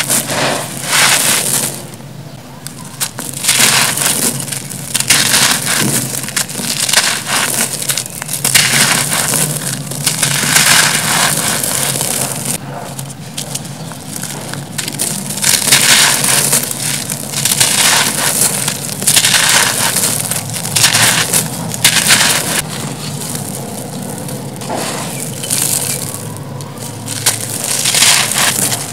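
Dry, crumbly grey concrete blocks crushed in the hands: gritty crunching as pieces break apart, with grit and dust pouring and trickling from the fingers, rising and falling in uneven waves.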